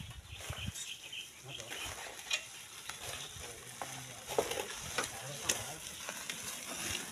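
Gritty scraping and crackling of sand and gravel being worked by hand, with a few sharp knocks of iron tools or stones during manual sand mining.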